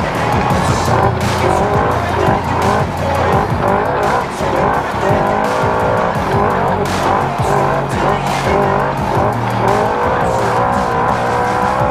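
Naturally aspirated race side-by-side (UTV) engine running hard, its pitch wavering up and down with the throttle. Frequent knocks and rattles come from the chassis and suspension over rough ground.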